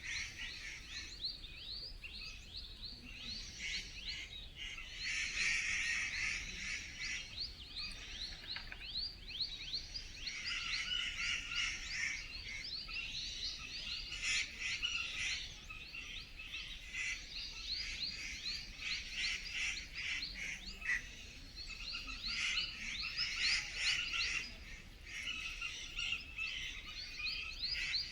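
Forest chorus of many birds chirping and calling over one another, with rapid runs of short, high, falling notes and denser bursts of chirping that come and go.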